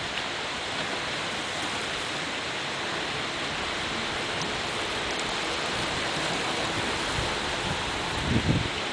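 Steady rush of small waves breaking on the beach, mixed with wind on the microphone, which gives a couple of louder low buffets near the end.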